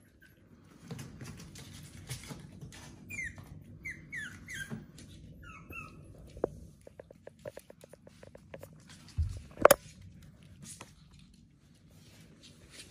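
Pomeranian puppies at their food plates: several short, high, falling squeaky whimpers, then a quick run of clicks, and one loud sharp knock about two-thirds of the way through, over low rustling.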